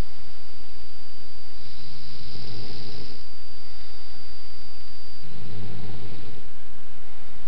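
Snoring: two long snores, one a couple of seconds in and another about five seconds in, over a steady hiss.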